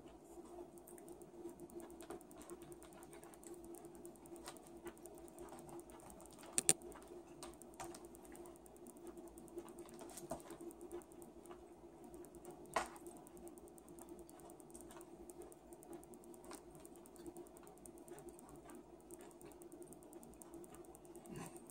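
Plastic knife and fork clicking and scraping against plastic takeout containers while food is cut and eaten, in many small irregular clicks with two sharper ones about seven and thirteen seconds in. A steady low hum runs underneath.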